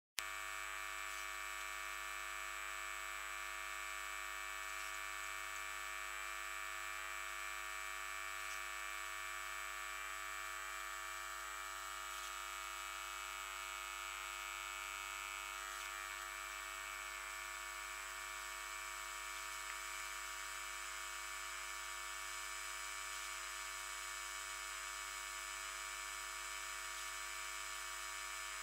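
Mains grid voltage played back as sound, high-pass filtered near 2 kHz: a steady buzz made of many high harmonics of the 50 Hz supply, heavy with harmonic noise from a load connected to the grid.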